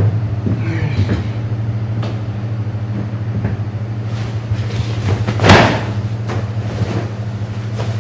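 Steady low hum, with a brief loud cloth whoosh about five and a half seconds in as a black barber cape is shaken out, and a few faint clicks and knocks.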